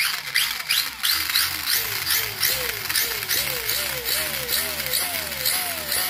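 Hobao EPX RC car's electric motor and drivetrain run up under repeated throttle blips. A high whine rises and falls over and over, about four times a second at first, slowing to about twice a second later.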